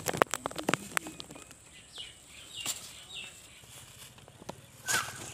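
Rustling and sharp clicks from handling okra plants and a plastic-bag glove while picking. In the middle a bird chirps several short, falling notes.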